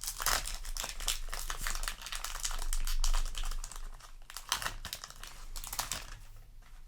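Foil Yu-Gi-Oh! booster pack wrapper crinkling as it is torn open and handled, a busy crackle that thins out near the end.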